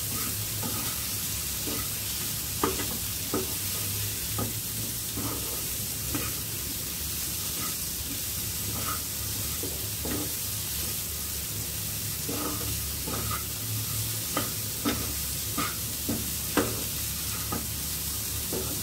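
Spatula stirring spiced boiled peas in a nonstick frying pan over a low gas flame: irregular scrapes and taps against the pan, more frequent in the second half, over a steady soft sizzle as the masala cooks dry.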